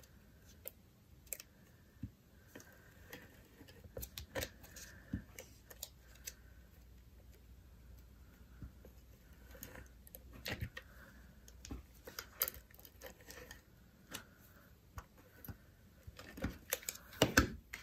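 Hands handling and pressing cardstock and a sheet of acetate on a table: light, scattered taps, clicks and soft paper rustles, with a louder cluster of taps near the end.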